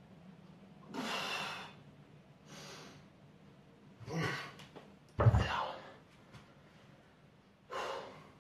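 Hard breaths and gasps of effort from a young man pressing heavy dumbbells overhead, four or so short rushes of breath. About five seconds in there is a heavy thud, the loudest sound, as the dumbbells are set down.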